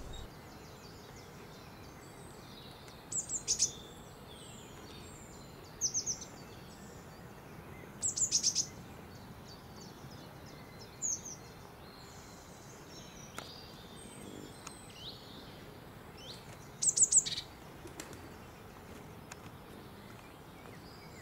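Songbirds chirping: several short bursts of quick, high notes every few seconds over a steady faint hiss.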